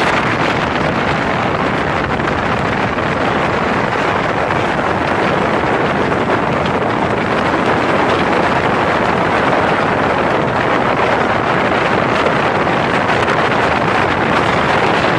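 Speedboat running steadily under way: engine and rushing water blend into one even, loud noise, with wind buffeting the microphone.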